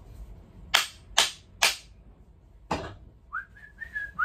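Three sharp knocks about half a second apart, then a fourth about a second later: a single-bit axe head being driven onto its wooden handle to hang it. Near the end, a man whistles a short tune.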